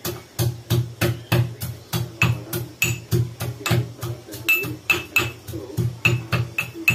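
Steady kitchen pounding, about three strikes a second, each a dull thump with a short metallic ring, as when crushing ingredients against metal on the counter.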